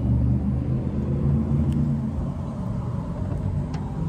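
A low, steady rumble, like a vehicle's engine and cabin noise, easing slightly in level.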